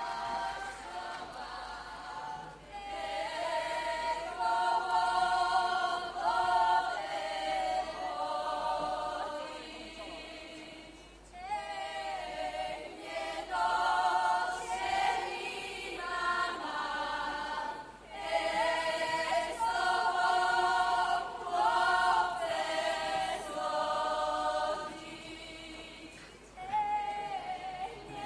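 A Podhale highland (Góral) folk ensemble singing together in a group, unaccompanied: long sung phrases broken by short pauses for breath.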